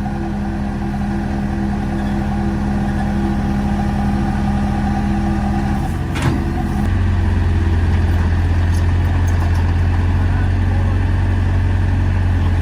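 Hydraulic excavator's diesel engine running under load. About six seconds in there is a brief knock, and the engine note drops lower and gets louder.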